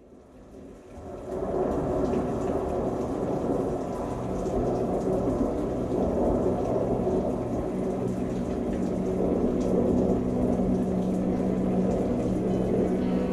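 Ambient soundscape fading in: a dense, steady rushing noise like water or distant rain, with low sustained drone tones coming up beneath it near the end.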